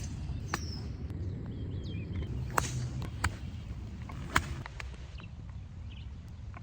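A few sharp clicks of golf clubs striking balls, the loudest about two and a half and four and a half seconds in, over a low wind rumble on the microphone.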